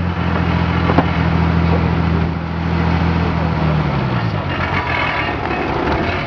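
A car engine running close by at a steady idle, with one sharp click about a second in. About two-thirds of the way through its pitch falls and it fades as the car pulls away.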